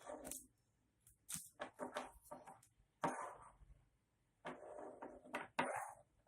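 Rustling and clattering of a 12V power socket's cable and packaging being handled and uncoiled. It comes in a string of short bursts, with a sharper knock about three seconds in.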